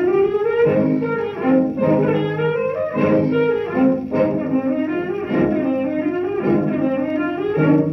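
Instrumental passage of an old Thai popular-song band recording playing from a 78 rpm shellac disc on a turntable: a melody on wind and string instruments over a bass line, with no voice, and the dull, narrow sound of an early recording.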